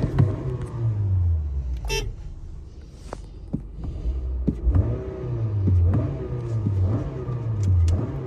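Car engine revved in repeated short blips, the pitch climbing and falling back about once a second. It settles lower and quieter for a few seconds mid-way, with a brief high chirp about two seconds in, before the blips resume.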